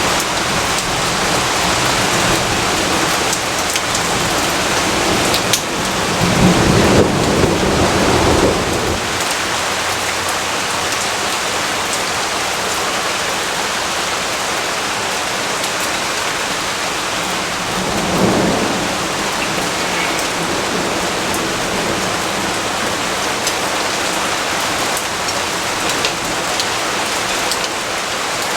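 Steady heavy rainfall, with a roll of thunder about six seconds in that rumbles for a few seconds and a fainter rumble later on.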